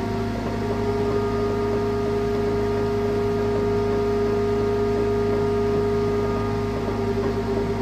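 Launch pad ambient sound beside the New Shepard rocket: a steady machine hum and hiss carrying several held tones, one of them standing out above the rest.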